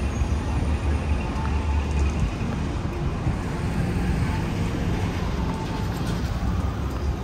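City street traffic: a steady low rumble of vehicles, even and unbroken.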